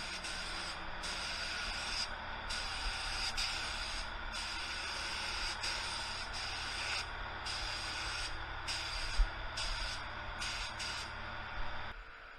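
Gravity-feed spray gun hissing steadily as it lays down base coat on a car door, the air cutting out briefly every second or two as the trigger is let off between passes. The spraying stops near the end.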